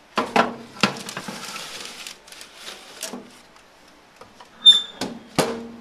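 A metal tray knocks and scrapes against the wire rack of an electric toaster oven as it is slid in, with baking paper rustling. Near the end there is a short metallic ring and two more knocks.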